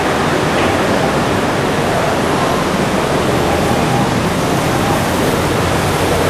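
Steady, dense noise of heavy road traffic from the busy street below, with no single engine, horn or event standing out.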